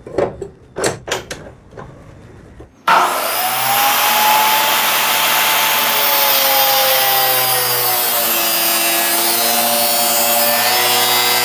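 A few short knocks as the vise is clamped on a steel pipe. About three seconds in, a DeWalt D28870 14-inch abrasive chop saw with a 2200 W motor starts suddenly and cuts through the 1.25-inch pipe with a loud grinding whine. The whine slowly drops in pitch as the wheel loads up in the cut.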